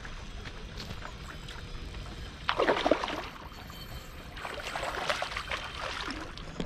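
A hooked pacu thrashing at the water's surface: a loud burst of splashing about two and a half seconds in, then a longer, weaker run of splashing.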